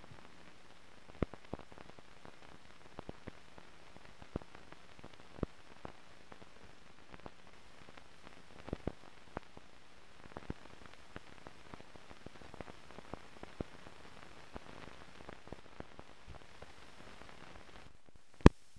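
Surface noise from an old film's soundtrack running on blank leader: a steady hiss with scattered clicks and pops, and one loud pop near the end.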